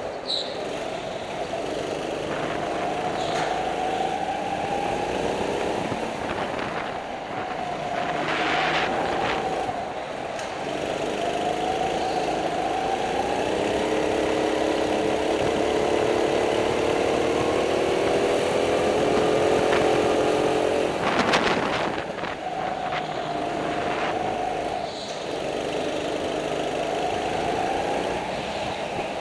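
Kart engine heard from the driver's seat, its pitch rising under acceleration on the straights and dropping off into the corners, over and over. Two short bursts of noise cut in, about 9 seconds in and, louder, about 21 seconds in.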